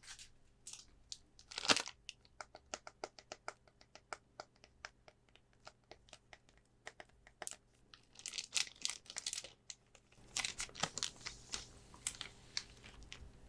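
Hands handling packaging and card items: a quick run of sharp clicks and taps with one louder knock near the start, then crinkling and tearing of plastic packaging in the second half.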